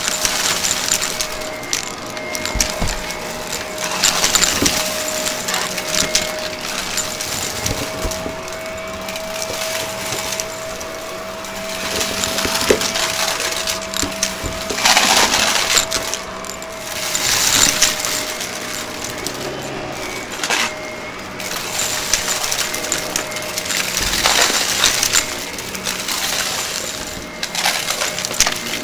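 Shark upright vacuum running over carpet: a steady motor whine under a rushing suction noise that swells and fades with each pass, with crackles and clicks as the brushroll picks up small beads and debris.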